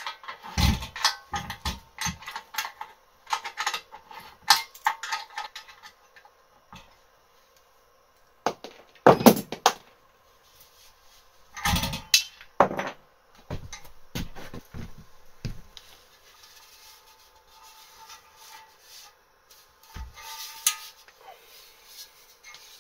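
Metal knocks, clinks and clanks as a gas cylinder used as a compressor air tank and its fittings are worked on and the tank is lifted and tipped. A run of quick knocks at the start, a few heavy thumps near the middle, then quieter handling with one more knock near the end.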